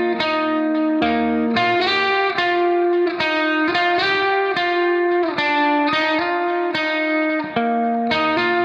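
Background music: a guitar playing a melody of plucked notes, with an effects-coloured electric tone.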